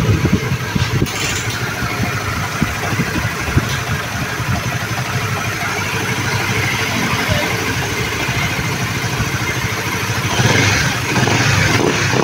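Honda Winner 150's single-cylinder engine running steadily at idle, a little louder from about ten seconds in.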